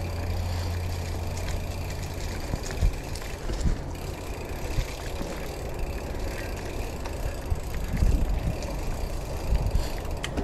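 Mountain bike being ridden over a dirt singletrack: tyre noise and wind on the camera microphone in a steady rumble, with the bike knocking and rattling over bumps several times.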